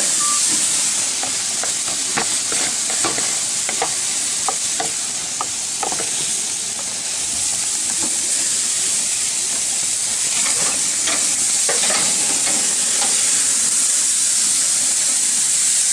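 Marinated chicken sizzling on a hot grill, a steady hiss with scattered pops and crackles as the oily curry marinade drips onto the fire and flares up.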